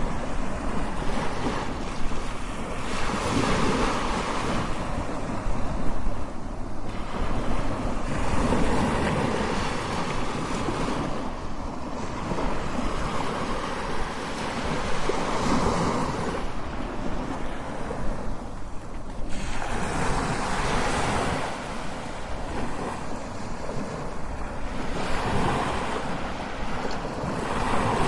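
Strong ocean waves crashing, one surge of surf after another, swelling and easing every few seconds.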